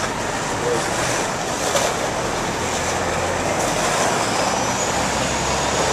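Steady city street noise of passing traffic, with a brief click just under two seconds in.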